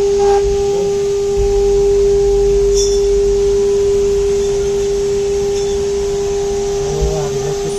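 6 kW air-cooled spindle of a CNC router running at a constant speed, a steady whine holding one pitch over a low machine rumble.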